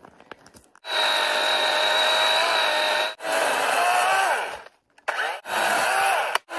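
DeWalt 20V cordless battery chainsaw running in three bursts with short pauses between trigger pulls, starting about a second in. Its motor whine sags in pitch and recovers as the chain bites into a log.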